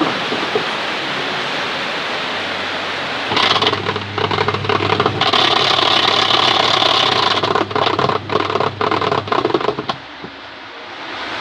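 Polytron twin-tub washing machine running: a steady rushing at first, then the wash motor hums and the pulsator churns noisily from about three seconds in, stopping about ten seconds in. The noise goes with a pulsator that is too weak to turn properly.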